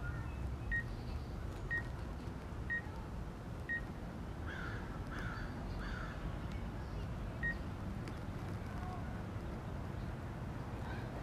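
Short, high electronic beeps about once a second, five in a row and one more a few seconds later. A bird calls three times in quick succession in the middle, over a low steady background noise.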